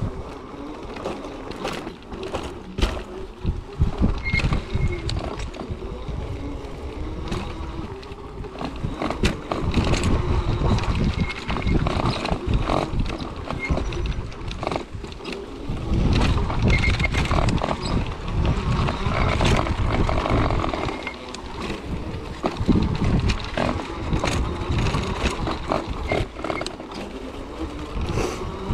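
An off-road wheelchair with an electric front-drive unit (Rehasense PAWS Tourer) rolling over a rough dirt trail. The frame rattles with frequent clicks and knocks over bumps. Wind buffets the microphone in rumbling gusts that swell and fade.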